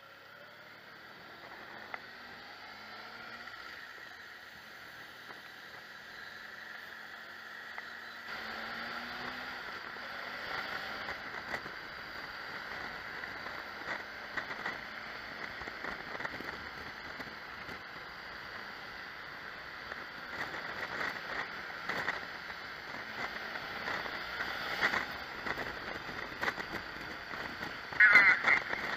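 Motorcycle riding along: steady wind and road noise with the engine's hum faint beneath it, slowly growing louder. About a second before the end, a loud warbling horn starts sounding.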